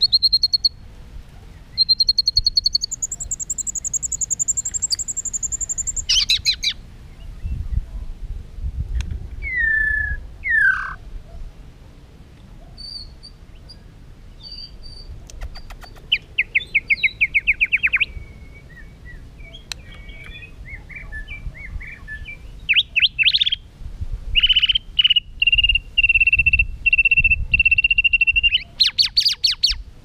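Male white-rumped shama singing a varied song of clear whistles: long held high notes, downward-sliding whistles and fast rattling runs of repeated notes, in phrases with short pauses between.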